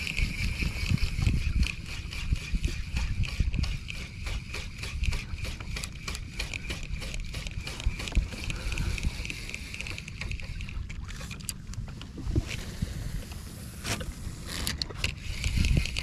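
Shimano Stradic 5000 spinning reel cranked quickly on a jig retrieve: a steady whirring whine from its gears and rotor that stops about eleven seconds in, followed by a few sharp clicks. A low rumble of wind and water runs underneath.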